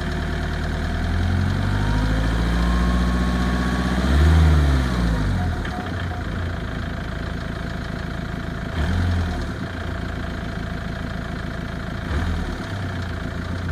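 Ford Mondeo engine idling, revved up slowly to a peak about four seconds in and let fall back to idle, then blipped briefly twice more.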